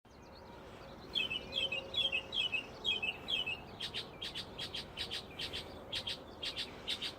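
Unidentified songbirds singing: first a short high chirping phrase repeated about twice a second, then, from about four seconds in, a run of short sharp notes about three a second.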